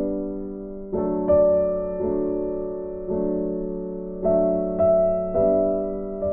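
Slow background piano music: chords struck roughly once a second, each left to ring and fade.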